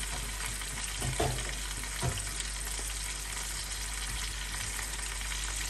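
Chicken pieces and potatoes frying in oil in a pan, a steady sizzle, with two brief knocks about one and two seconds in.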